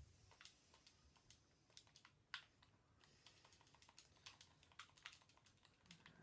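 Faint typing on a computer keyboard: irregular key clicks, a few a second, with one sharper click about two and a half seconds in.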